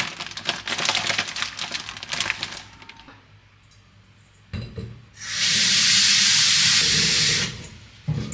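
Dense crackling for about two and a half seconds, a thump, then about two seconds of loud, steady hissing like a spray or running water, followed by a knock near the end.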